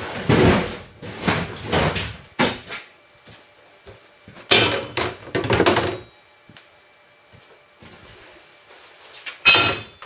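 Scraping and knocking of things being moved and handled at a workbench, in short bursts separated by pauses, the loudest a sharp knock near the end.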